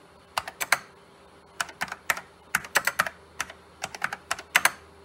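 Keystrokes on a Sanyo MBC-555 keyboard with linear key switches, typed in uneven little bursts of sharp clicks, about eighteen in all.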